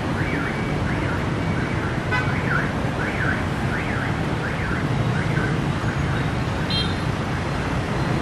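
A siren warbles rapidly, rising and falling about twice a second, over the steady noise of dense motorbike and car traffic. It fades out after about five seconds, and a short high beep follows near the end.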